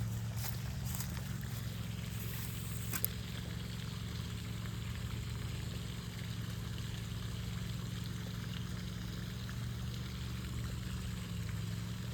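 Steady low hum with water trickling, and one sharp click about three seconds in.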